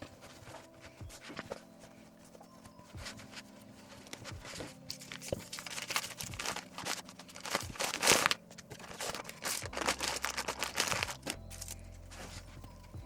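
Plastic or paper packaging crinkling and rustling, with tearing sounds, in bursts that pick up in the middle and are loudest about eight seconds in.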